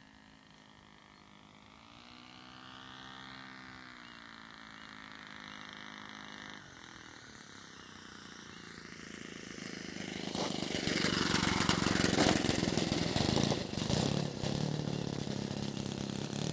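Thunder Tiger 130 four-stroke engine of a radio-controlled model Stuka running, its pitch rising and falling as the plane flies at a distance. From about ten seconds in it grows much louder and rougher as the plane comes in close and reaches the grass.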